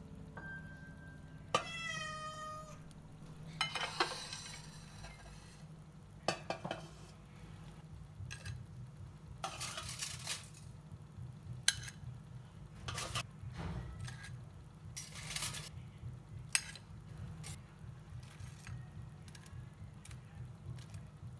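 Crisp crunching of fried shrimp toast in several short bursts over a low steady hum, with a short high cry falling in pitch about two seconds in.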